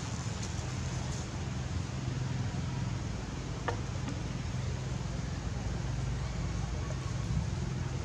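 Steady outdoor background noise with a low hum, and one faint click about halfway through; no distinct monkey calls.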